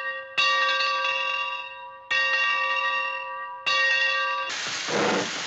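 A bell struck three times, each stroke ringing with several steady tones and fading before the next. About a second before the end the ringing gives way to a steady rushing hiss.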